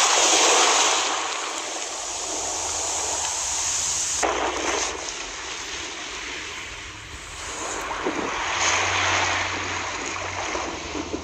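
Rushing water sound effect, like surf or a stream: a steady roar that swells and ebbs, with an abrupt change about four seconds in.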